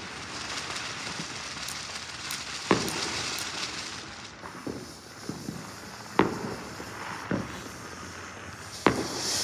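Firework bangs going off against a steady crackle and hiss, a handful of sharp reports with the loudest about three, six and nine seconds in.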